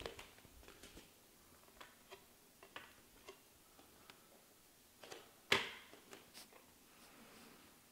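Bare feet stepping onto and shifting on a flat glass-topped bathroom scale on a hard floor: a few faint ticks and taps, then one sharper knock about five and a half seconds in.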